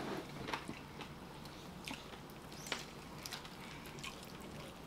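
Faint, scattered wet smacks and clicks of people chewing rotisserie chicken and pulling it apart with their fingers.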